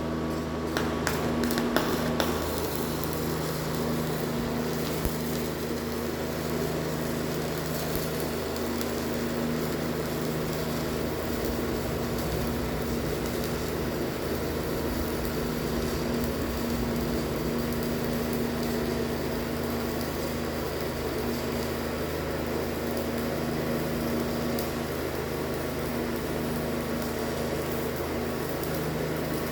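Electric arc welding on a stainless steel flange: a steady hiss with a low electrical hum, and a few sharp crackles in the first two seconds.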